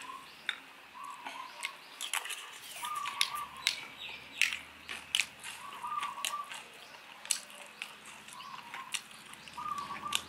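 Metal fork and spoon clinking and scraping against a ceramic plate of fried rice, many short sharp clicks. A bird repeats a short call in the background every second or two.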